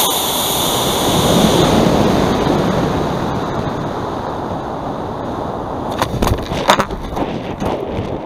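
A cluster of model rocket motors igniting at liftoff, heard from a camera riding on the rocket: a sudden loud roar that is strongest for the first couple of seconds, then slowly fades. From about six seconds in it gives way to gusty wind rushing past the airframe, with sharp knocks.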